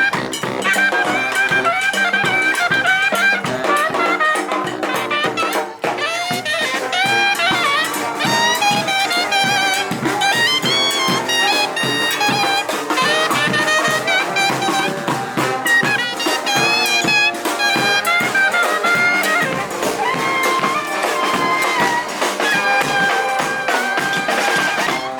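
Brass band playing a jazzy tune, trumpets and saxophones carrying the melody over steady drumming.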